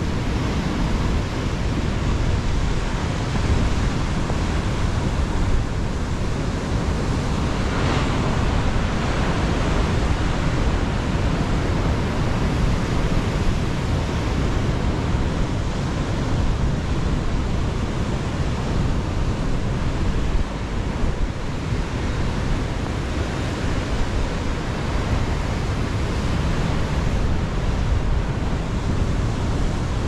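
Stormy ocean surf washing steadily with wind, a dense unbroken noise heaviest in the low end, with one brief surge about eight seconds in.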